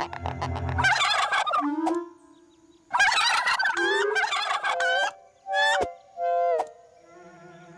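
Cartoon ostrich's turkey-like gobbling squawks: two long rattling bursts, then two short sliding calls.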